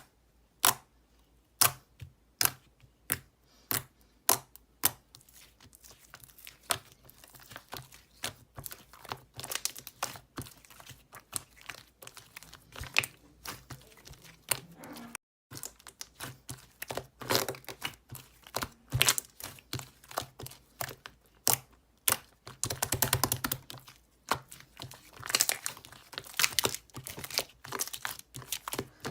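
Close-up handling noise with no speech. Sharp single clicks come about once a second at first, then give way to denser crinkling and crackling, with a quick burst of crackles a little after the twenty-second mark.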